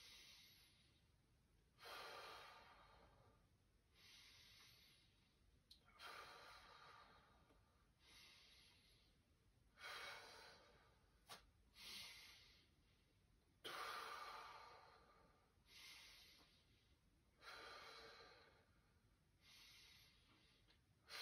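A man's slow, faint deep breathing, paced, with a breath sound about every two seconds. One small click about eleven seconds in.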